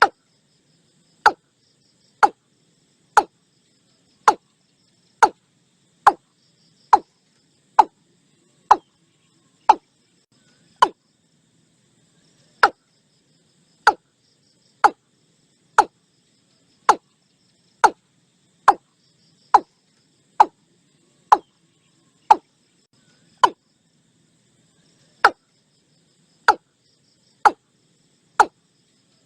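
Watercock calling: a long series of short, sharp notes, each falling quickly in pitch, repeated about once a second with a couple of brief pauses.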